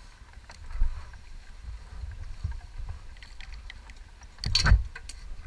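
Wind buffeting the camera microphone in an uneven low rumble, with a few faint handling clicks and one louder knock about four and a half seconds in.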